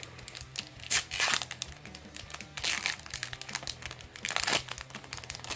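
Foil Pokémon booster pack wrapper crinkling and tearing as it is opened by hand, in irregular bursts that are loudest about a second in and again past four seconds.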